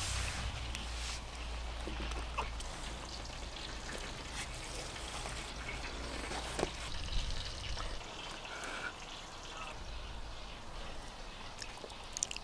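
Quiet eating sounds: chewing, with a few sharp clinks of a fork on a plate.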